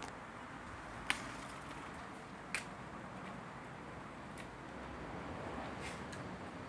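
Steady background hiss broken by two sharp clicks, about a second and two and a half seconds in, with a couple of fainter clicks later.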